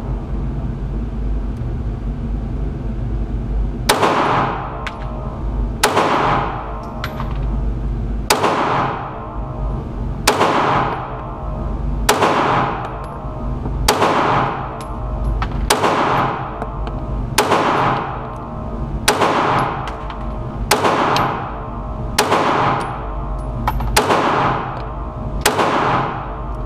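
Glock 26 Gen 4 9mm pistol fired slowly, about a dozen single shots roughly one every one and a half to two seconds, each ringing out briefly.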